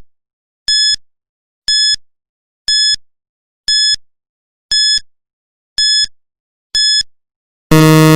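Quiz countdown timer beeping: short high-pitched electronic beeps, one each second, eight in a row. Near the end a longer, lower buzzer tone sounds, marking the end of the countdown.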